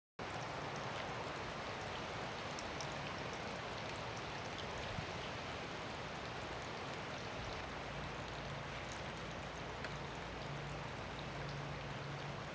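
Hard rain falling steadily: an even hiss with scattered ticks of single drops.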